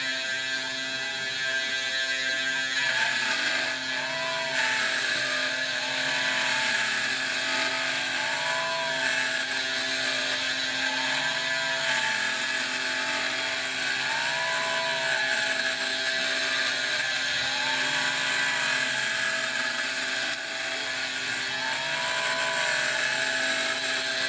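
Eleksmill desktop CNC mill cutting: its spindle motor whines steadily as the end mill works the workpiece, with a short tone that rises and falls about every two to three seconds as the head moves.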